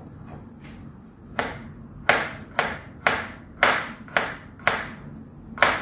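Kitchen knife chopping garlic cloves on a plastic cutting board: a series of sharp knocks, about two a second, starting a little over a second in.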